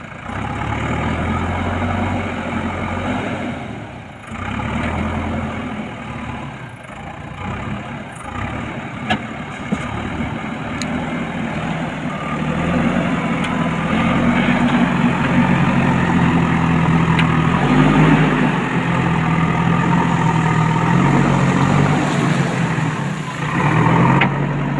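JCB backhoe loader's diesel engine running, its engine speed varying, then rising about halfway through and staying higher and louder as the machine works.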